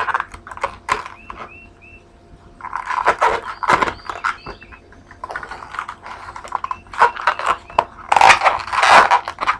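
Long latex modelling balloons being twisted and handled for an ear twist: irregular bursts of rubbery rubbing and crinkling, with a few short high squeaks.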